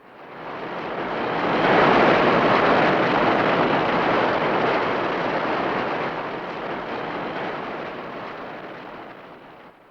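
A rushing noise sound effect with no pitched roar in it. It swells up from silence over about two seconds, then slowly fades away.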